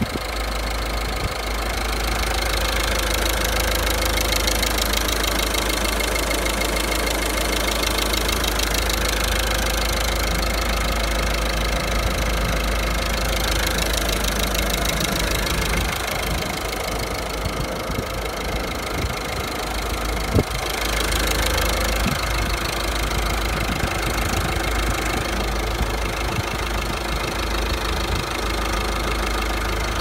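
Citroën C-Elysée engine idling steadily under the open bonnet, heard close up in the engine bay, with one brief tap about two-thirds of the way through.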